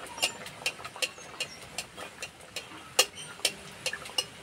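Metal spatula tapping and scraping against an iron kadai about two to three times a second while hot oil is splashed over a stuffed paratha deep-frying, with the oil sizzling faintly underneath. One stroke about three seconds in is the loudest.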